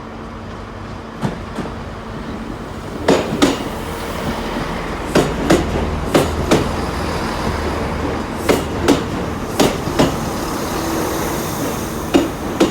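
Class 166 Turbo diesel multiple unit rolling through the station over rail joints. Its wheels click in pairs, one pair every second or two, over a low engine rumble.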